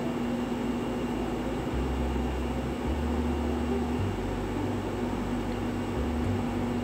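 A steady mechanical hum with hiss, holding one low tone throughout, with some shifting low rumble underneath.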